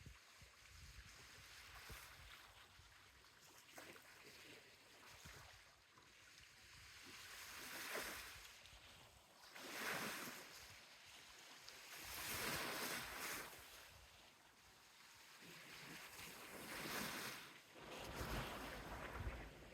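Small Mediterranean sea waves washing up a beach, with about five soft surges that swell and fade every two to four seconds. A low rumble comes in near the end.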